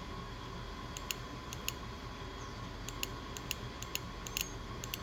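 New fuel injector for a 2000 Ford Ranger 3.0 clicking each time it is pulsed with a 9-volt battery: a dozen or so sharp, irregular clicks as its solenoid snaps open, the sign that the injector works.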